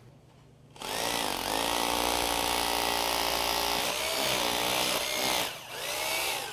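Corded hammer drill with a masonry bit boring a pilot hole into a concrete floor for a Tapcon screw. It starts about a second in and runs steadily with its motor pitch shifting under load, eases off briefly near five seconds, then gives one short final burst before stopping.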